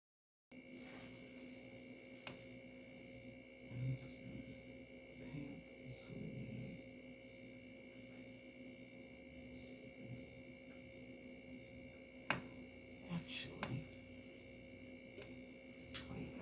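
Steady electrical hum with a faint high whine, starting about half a second in, with faint scattered taps and rustles of handling: a paintbrush working on a silicone doll and hands pressing on plastic wrap.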